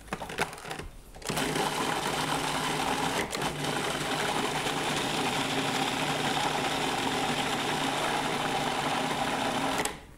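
Food processor motor running steadily, pureeing a thick blue cheese dip. It starts after a few clicks about a second in and cuts off near the end.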